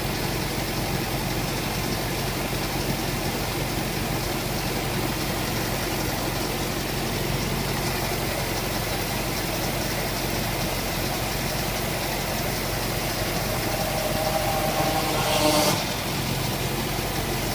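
1954 Trackmobile T2M running steadily at idle while its hydraulics slowly move the coupler. Near the end a louder whine rises for about two seconds and then cuts off sharply.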